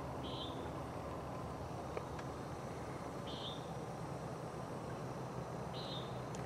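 Steady low rush of wind on the microphone, with a bird giving a short high chirp three times, roughly every two and a half seconds.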